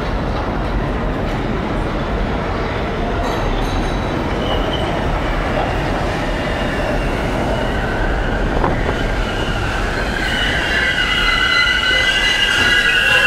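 Budd R32 subway train arriving at the station: a steady rumble of steel wheels on the rails grows louder as it approaches. From about ten seconds in, a high squeal of several tones rises as it runs alongside the platform.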